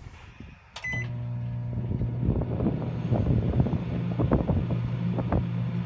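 Microwave oven started with a short beep, then running with a steady electrical hum. Irregular crackling ticks come from about two seconds in.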